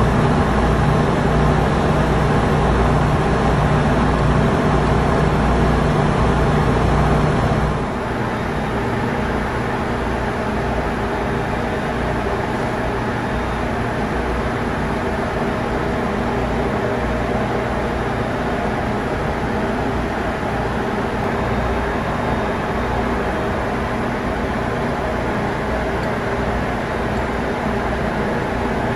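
Ship's engine-room machinery running steadily: a loud, continuous mechanical drone with a low hum. About eight seconds in it drops a little in level and the hum changes.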